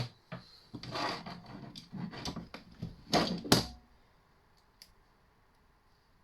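Copper cable being stripped by hand: a run of scraping, rustling and clicks from the wire and its insulation. The run stops about four seconds in, and one more click follows about a second later.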